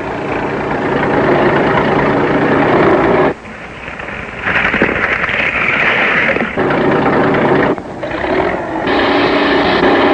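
Engines of bulldozers and other heavy earthmoving machines running. The sound breaks off and changes abruptly several times, as between edited shots.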